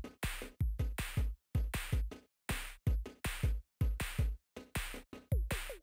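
Electronic background music with a drum-machine beat: deep kick drums and snare-like hits in a choppy, stop-start pattern, with a short falling synth tone near the end.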